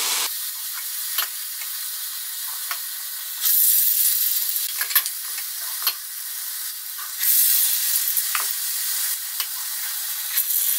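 Hot oil sizzling as urad and moong dal batter vadas deep-fry in a pan, with scattered small pops. The sizzle swells sharply twice, about a third of the way in and again past the middle, as fresh dollops of batter go into the oil.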